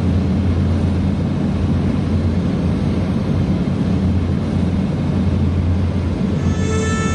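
Steady low rumble of a car's engine and road noise heard from inside the moving car. Near the end a sustained reed-like musical note comes in over it.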